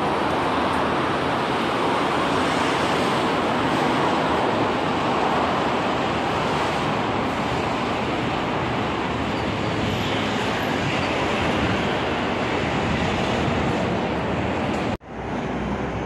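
Steady street traffic noise from a busy road alongside. It cuts out abruptly for an instant near the end, then returns a little quieter.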